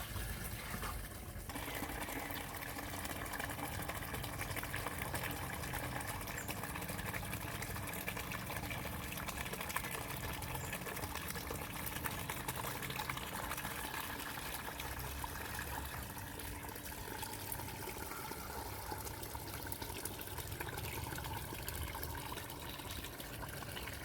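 Water running steadily, as from a tap into a sink or basin, with an even trickling splash.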